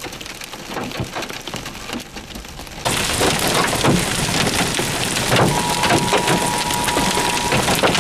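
Heavy rain and large hail pelting down, full of sharp knocks from hailstones striking. It becomes much louder about three seconds in. A steady electronic tone joins it about halfway through.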